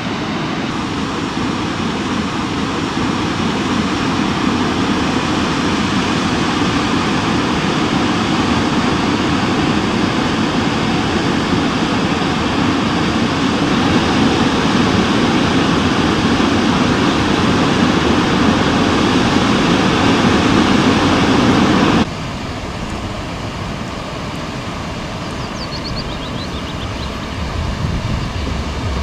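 Steady rush of water from the Litlverivassforsen waterfall cascading down bare rock, a dense even noise. About two-thirds of the way through it drops suddenly to a quieter, more distant rush.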